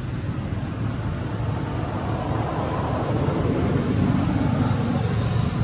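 A motor vehicle engine running steadily with a low hum, growing gradually louder.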